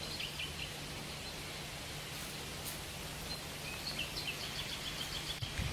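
Steady outdoor background noise with small birds chirping: a few short high chirps at the start, and a quick run of short repeated high notes in the last couple of seconds.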